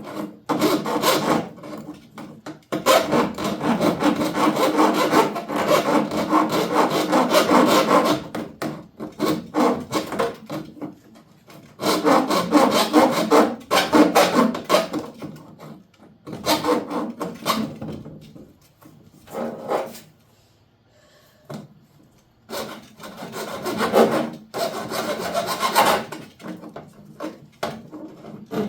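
Hand file rasping on metal in runs of quick back-and-forth strokes, pausing briefly about two-thirds of the way through.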